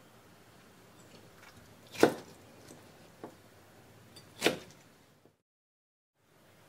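Kitchen knife slicing through a bamboo shoot and striking a wooden cutting board: two sharp knocks about two and a half seconds apart, with a couple of lighter taps between. The sound then cuts out for about a second.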